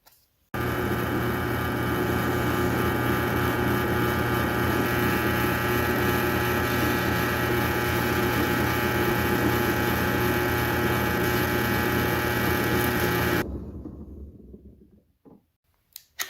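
Electric drill starting up and running at a steady speed for about thirteen seconds while drilling rivet holes in a Kydex sheath, then switched off and spinning down.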